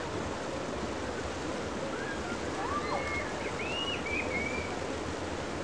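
Shallow river water rushing steadily over rocks, with a few faint high cries about halfway through.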